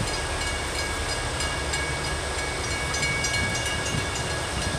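Grade-crossing warning bell ringing steadily over the low rumble of an approaching US Sugar freight train.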